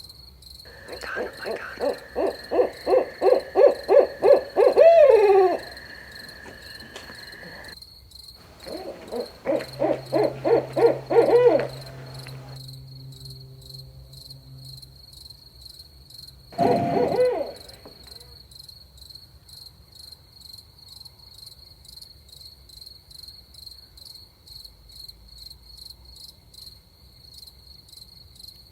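Barred owl hooting: two runs of quick, rhythmic hoots, about three a second, each ending in a falling, drawn-out note, then one short call near the middle. Crickets chirr steadily behind it.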